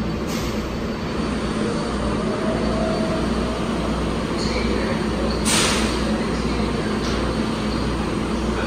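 R188 subway train standing in the station with its doors open, its onboard equipment giving a steady low hum. A short hiss of air cuts in about five and a half seconds in.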